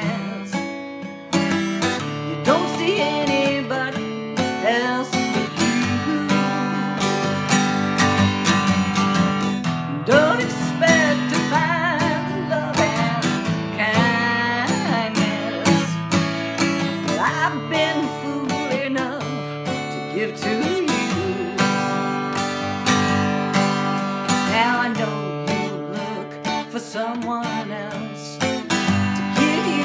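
A woman singing while strumming a cutaway acoustic guitar.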